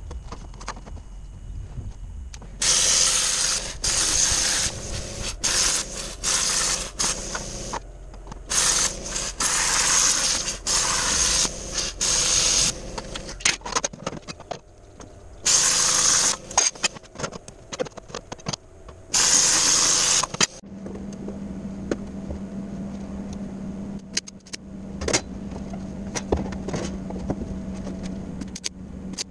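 A power tool cutting stainless steel sheet, running in loud hissing bursts of one to several seconds that start and stop abruptly. About two-thirds of the way through the cutting stops and a steady low hum with a few faint clicks takes over.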